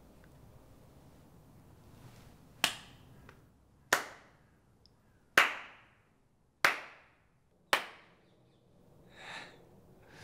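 One person slowly clapping their hands five times, a little over a second apart, each clap ringing briefly off the walls: mocking applause.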